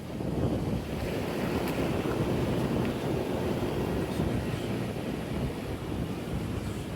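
Wind buffeting the microphone: a rough, rumbling noise that swells about half a second in and keeps gusting, with a couple of faint clicks.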